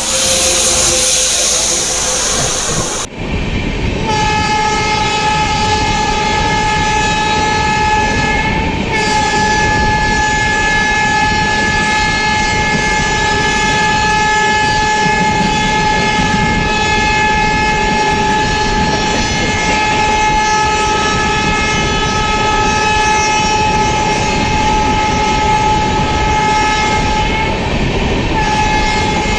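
A loud rush as an electric freight locomotive passes close by for the first three seconds, then a multi-tone train horn held for more than twenty seconds, broken once briefly, over the steady rumble and clatter of a passenger train's wheels while a long line of freight wagons runs alongside.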